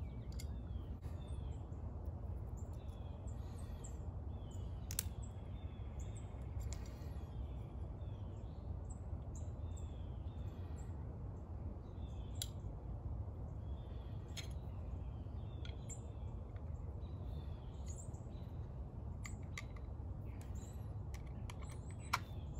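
Small birds chirping over a steady low background rumble, with a few sharp clicks from a plastic utility knife and a screwdriver being handled; the loudest click comes near the end.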